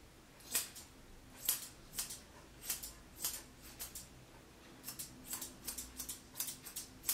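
Artero straight grooming shears snipping through the wig hair of a dog grooming model. A run of short, sharp snips, spaced out at first and coming several a second from about five seconds in.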